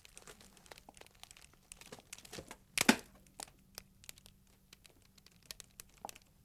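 Paper rustling as the pages of a book are turned over, with scattered small ticks and one louder rustle just before three seconds in.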